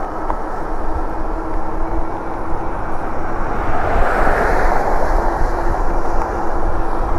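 Wind and road noise rushing over the microphone of a moving e-bike, with a steady hum under it. The rush swells louder about four seconds in, then settles.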